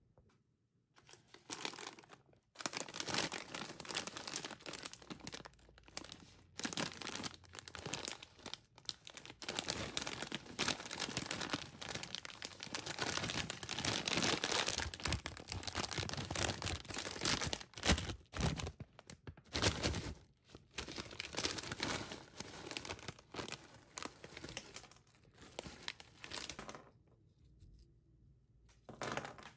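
Foil snack bag of Flamin' Hot Cheetos crinkling and tearing as it is handled and pulled open, a dense run of irregular rustles and crackles that stops about two seconds before the end.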